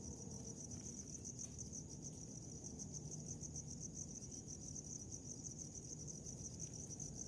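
Crickets chirping in a steady, high, continuous trill.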